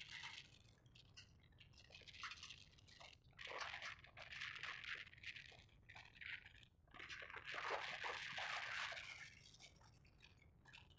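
Volvo crawler excavator's bucket scraping and crunching through dry soil and weeds on a bank, in irregular bursts, the longest a few seconds in and again about two-thirds through, over a faint steady low rumble.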